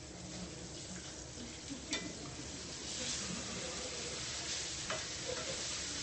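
Steak searing in a hot cast-iron skillet: a steady sizzle that grows louder about three seconds in, with one sharp click about two seconds in.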